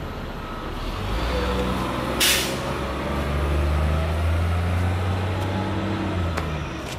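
A low engine rumble that swells from about a second in and eases near the end, with a brief hiss about two seconds in.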